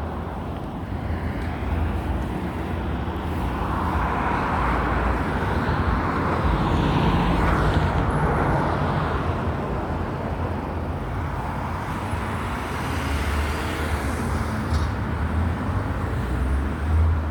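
Road traffic: a steady low rumble of vehicles, with a car passing and swelling louder, then fading, through the middle stretch.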